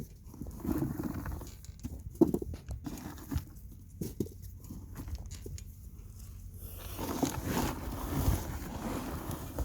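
Hands digging through soil in a potato grow bag: soft rustling and scattered small knocks, getting busier near the end.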